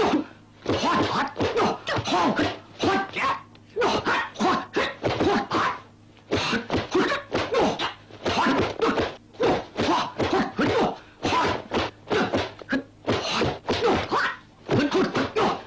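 Kung fu fight sound effects: a rapid run of whacks and thunks from punches and blocks, several a second, with short cries mixed in.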